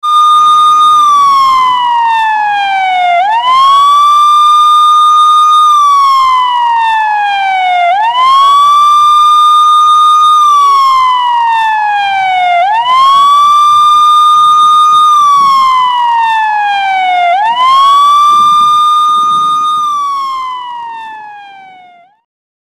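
Fire engine siren wailing. Each cycle sweeps quickly up to a high note, holds it for about two seconds, then slides slowly back down, repeating roughly every four and a half seconds. It fades out near the end.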